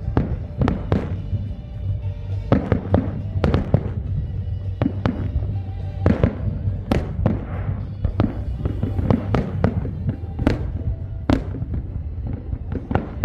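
Fireworks going off: many sharp bangs and cracks at irregular intervals, one to three a second, over a steady low rumble.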